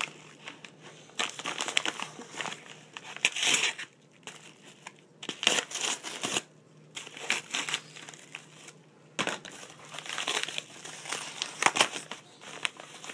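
Crinkling and rustling of a yellow padded paper mailer envelope being handled and cut open with a folding knife, in uneven bursts with brief pauses.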